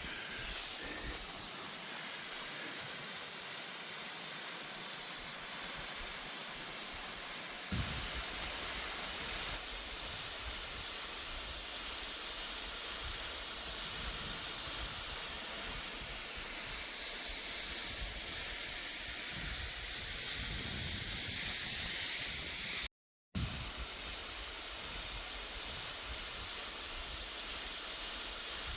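Steady rushing of a waterfall, a constant hiss with a low rumble beneath, broken by a sudden change about eight seconds in and a half-second gap of silence near the end.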